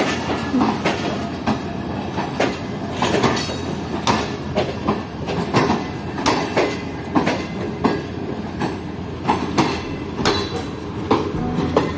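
Tezgam Express passenger coaches rolling past on departure, their wheels clacking over the rail joints in a steady repeating rhythm.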